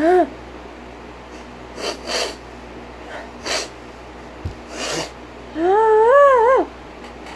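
A woman's vocal tics, from Tourette syndrome: a short pitched yelp, several sharp breathy snorts, and near the end a squeal about a second long, the loudest sound, whose pitch rises and wobbles twice. A soft thump midway.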